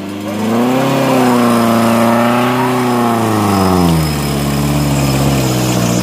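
Off-road 4x4's engine revving: the pitch climbs in the first second, holds high for about two seconds, then drops back to a low steady run.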